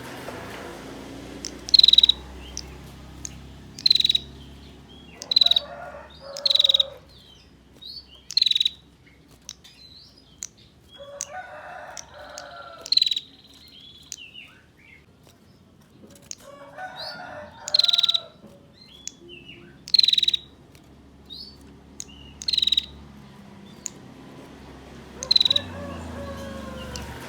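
Female prinia (prenjak) giving its 'ngetir' call: short, sharp, high calls repeated about every two seconds, the call used to lure male prinias into singing. Lower, longer animal calls come in a few times in the background.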